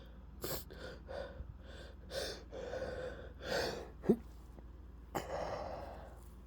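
A person building up to a sneeze: a run of short, catching in-breaths, then a sharp, stifled sneeze cut off almost at once about four seconds in. About a second later comes a breathy, louder burst that trails away.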